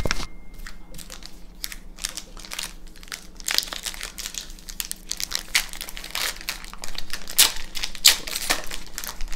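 Foil wrapper of a Magic: The Gathering booster pack crinkling and crackling in the hands as it is worked open, in many quick sharp crackles. A light knock right at the start as a stack of cards is set down.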